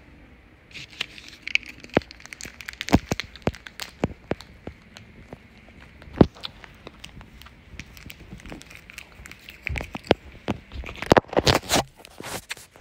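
Handling noise from a handheld camera being carried and swung about: irregular clicks, knocks and rustling against the microphone, with a thicker cluster of knocks near the end.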